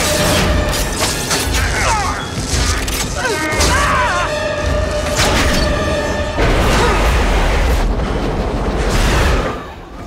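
Action-film sound mix: orchestral score over a deep, continuous rumble, with repeated booms and crashing hits. It all drops away sharply near the end.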